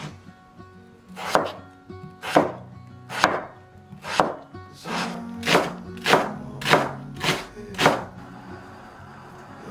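Cleaver chopping Korean radish and green onion on a wooden cutting board: about ten crisp strokes, roughly one a second at first and a little quicker later, stopping about eight seconds in.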